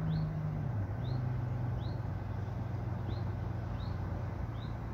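Low steady engine hum, dropping in pitch a little under a second in, over steady outdoor background noise, with a bird giving a short high chirp about once a second.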